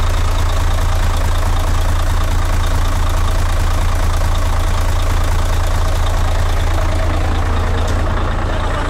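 Mercedes-Benz Actros 1843's V6 diesel engine idling steadily, freshly started for the first time after standing a long time.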